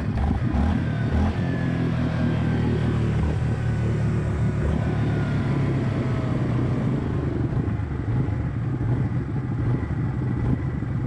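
Yamaha 700 ATV's single-cylinder four-stroke engine running steadily under throttle, with a faint whine that slides in pitch during the first few seconds.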